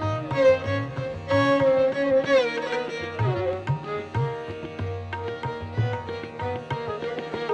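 Instrumental background music in an Indian classical style: a plucked string instrument plays a melody that slides between notes over low, pitch-bending hand-drum strokes.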